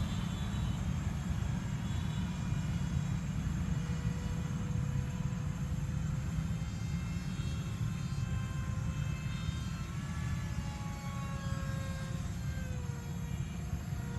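Radio-controlled F-22 model plane's motor whining in flight, its thin tone wavering and dropping in pitch near the end, over a heavy low rumble.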